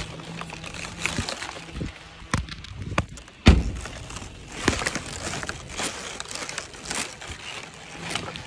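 Plastic shrink-wrap on a case of bottled water crinkling and rubbing against the microphone as it is carried, with scattered knocks and one heavy thump about three and a half seconds in.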